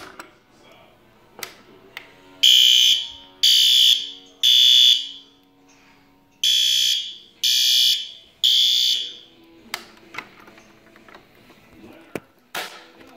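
Fire alarm sounding the temporal-three evacuation pattern: two rounds of three loud, high-pitched blasts about a second apart, with a pause between rounds, set off from a pull station.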